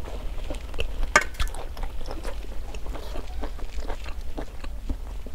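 A person chewing a mouthful of hot-pot beef close to the microphone, with scattered small clicks and smacks, the sharpest about a second in.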